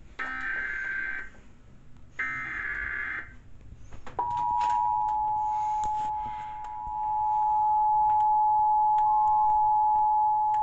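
Emergency Alert System SAME header: two bursts of raspy digital data warble, each about a second long and about a second apart. About four seconds in, the EAS attention signal begins: a steady two-tone beep held without a break.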